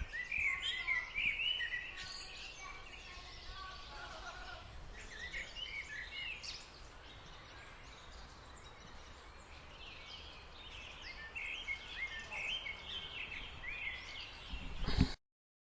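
Small songbirds chirping and twittering in quick bursts over steady background noise, busiest near the start and again toward the end, then the recording cuts off suddenly.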